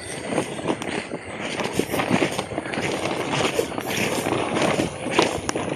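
Quick, irregular footsteps through tall grass and weeds, with the rustle and swish of plants brushing against the legs. A faint steady high tone runs underneath.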